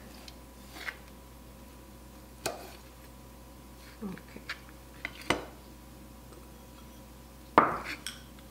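Chef's knife knocking on a plastic cutting board as dried figs are cut into small pieces: a handful of separate strokes with pauses between, and a louder knock near the end.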